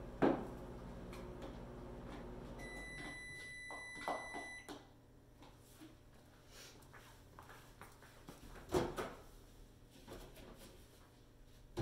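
Microwave oven running with a steady hum that stops about three seconds in, while its end-of-cycle beeper sounds a high beeping tone for about two seconds. Clicks follow, and there are sharp knocks just after the start and again near the end.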